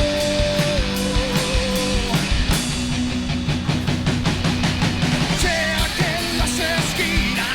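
Rock band music: a sung note is held for about two seconds over guitar and drums, then a quick run of drum hits fills the middle, and the vocal line comes back near the end.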